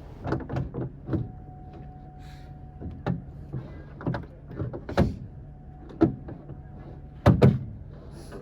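Plastic door trim panel on a Honda Civic being fitted and snapped into place: a string of knocks and clicks, the loudest near the middle and a sharp double snap near the end.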